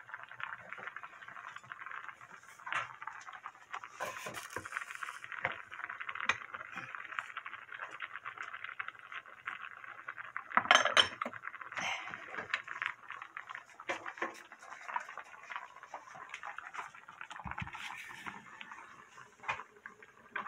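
Seafood doenjang stew boiling hard in an earthenware ttukbaegi, a steady crackling, popping bubble. About halfway through, a spoon clatters and scrapes against the pot as it is stirred.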